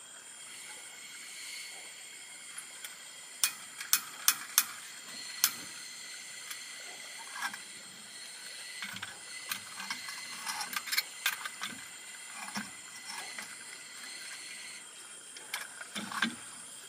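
Scattered sharp clicks and taps, with a cluster of loud ones about three to five seconds in, over a steady high-pitched whine.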